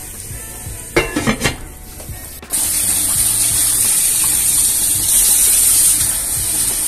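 A few clattering knocks of crockery, then about two and a half seconds in a kitchen tap is turned on and water runs steadily into a stainless steel sink, splashing through a small metal sieve being rinsed.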